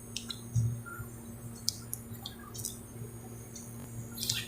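Faint, scattered small clicks and taps from handling parts during a circuit-board repair, over a low steady hum.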